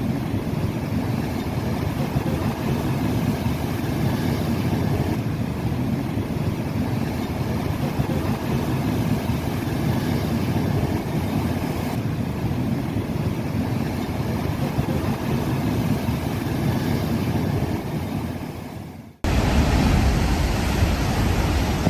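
Storm wind rushing and buffeting the microphone, a steady deep noise. About nineteen seconds in it dips, cuts off, and a louder, deeper rush of wind takes over.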